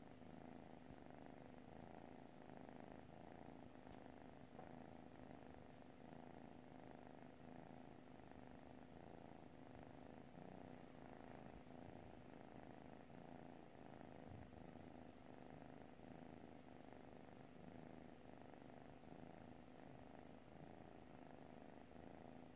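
A sleeping kitten purring, faint and steady throughout.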